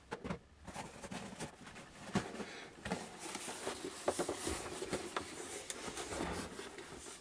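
Handling noise from a cardboard box being picked up and moved about: irregular scuffs, rustling and light knocks.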